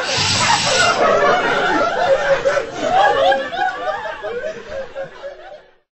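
Live audience laughing after a punchline, the laughter dying away over several seconds and cutting off just before the end.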